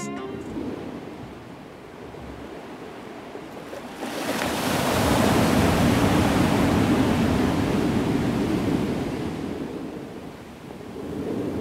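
Sea waves washing in over shallow water on a sandy beach: a wash swells about four seconds in, holds for several seconds and dies away, and another begins to build near the end.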